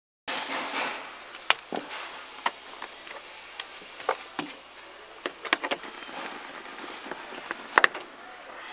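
Scattered clicks and knocks of tools and plastic interior trim being handled over a steady hiss. The hiss stops suddenly about six seconds in, and a sharp double click near the end is the loudest sound.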